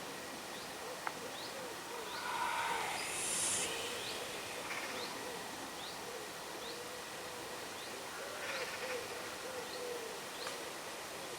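Animal calls outdoors: a steady run of low, arched calls repeating about twice a second, over faint high chirps at an even pace. A rustling noise rises twice, loudest about three seconds in, with a single click just before it.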